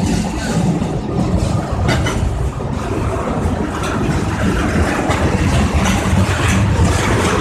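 Steady rumble and running noise of a moving vehicle, even and unbroken.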